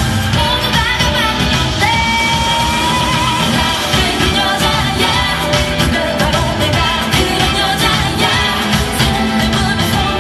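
K-pop song by a girl group playing loud, with women singing over a steady dance beat; one long held note comes about two seconds in.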